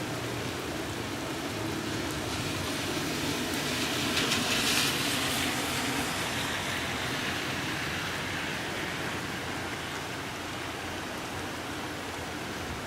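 Steady rain falling in a thunderstorm. Near the middle a louder hiss swells, peaks about four to five seconds in, then slowly fades.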